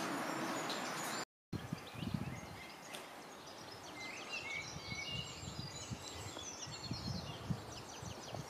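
Several songbirds singing in spring woodland, many short chirps and whistles overlapping, over a low rumble. It starts with a short stretch of hiss, and the sound drops out briefly about a second in.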